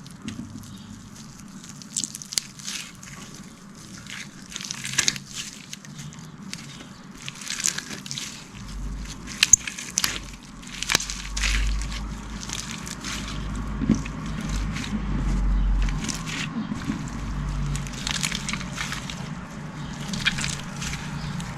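Slime being squished and worked by hand, with many short wet clicks and pops scattered throughout. A low rumble runs underneath for several seconds in the middle.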